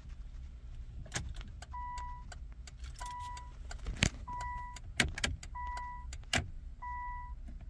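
2001 Nissan R50 Pathfinder's dashboard warning chime sounding five times, a steady beep about once a second, as the key is turned to on with the engine off. Keys click and jangle at the ignition between the beeps.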